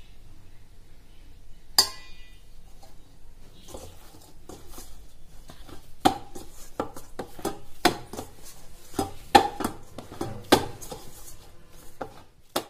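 Dough kneaded by hand in a stainless steel bowl: a run of knocks, about two to three a second, as the dough is pressed and turned against the bowl, some strokes leaving a short metallic ring. One sharp metallic clink comes about two seconds in.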